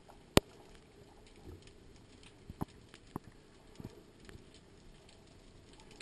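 Underwater ambience picked up by a diver's camera: a steady low hiss with scattered sharp clicks and snaps, the loudest one about half a second in and several fainter ones through the middle.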